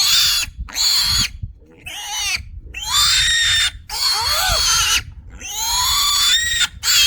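A Kunekune piglet squealing in loud, shrill screams, about six in a row, the last one the longest. These are distress screams from a restrained piglet being castrated with a scalpel.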